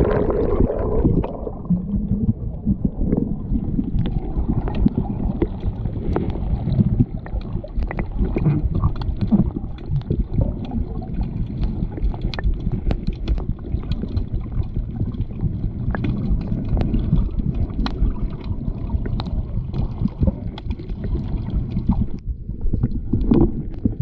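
Underwater sound heard through an action camera's waterproof housing: a muffled, steady low rumble of moving water and the swimmer's motion, scattered with many sharp clicks and crackles.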